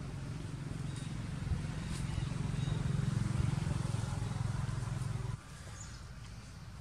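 A motor engine running steadily as a low hum, which cuts off abruptly about five seconds in, leaving a quieter background with a few faint clicks.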